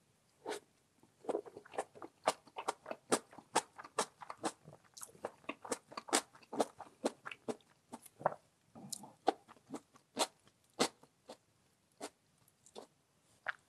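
Close-miked mouth sounds of someone chewing crunchy pickled radish, a steady run of crisp crunches about two or three a second, with a few softer, wetter chews between them.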